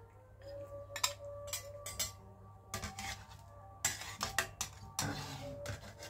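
Metal ladle clinking and knocking against a metal wok while fish head and broth are ladled out, a series of short clinks with a longer scrape about five seconds in.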